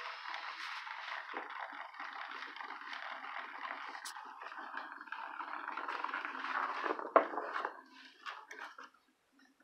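Hexbug vibrating toy bug buzzing and rattling over a hardwood floor, with one sharp knock about seven seconds in. The rattle dies away to scattered ticks about a second before the end.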